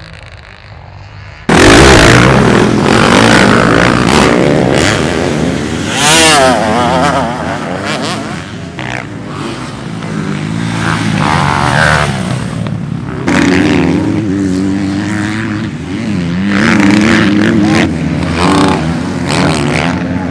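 Motocross dirt-bike engines revving and racing, rising and falling in pitch through the gears, loud from about a second and a half in.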